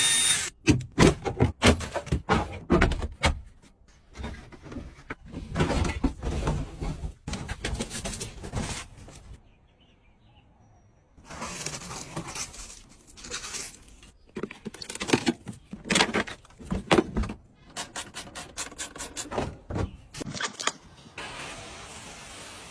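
Irregular clicks, knocks and short rattling bursts, like objects being handled, with a brief quiet pause about halfway through. A steady hiss starts near the end.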